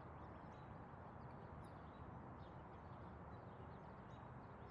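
Near silence: a faint steady hiss with a few faint, short, high chirps scattered through it.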